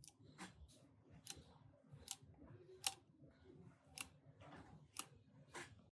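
A series of sharp clicks at uneven intervals, about one a second, over a faint low background.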